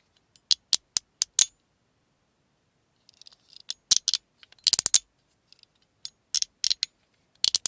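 Mechanical fidget slider with magnets being slid back and forth, giving sharp clicks in quick groups, five in a row, then a pause, then more clicking clusters with short scrapes.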